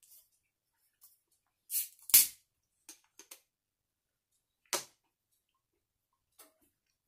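Cap of a plastic Coca-Cola Zero Sugar bottle twisted open: a short hiss of escaping gas and then a sharp crack about two seconds in. A few lighter clicks follow, and another sharp click comes near five seconds.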